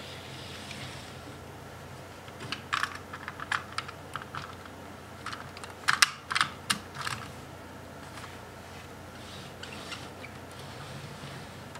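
Plastic Lego pieces clicking and knocking as a Lego spaceship model is handled and seated into a Lego Technic gantry crane. The clicks come in an irregular cluster through the middle, loudest about six seconds in, with a few fainter ones near the end.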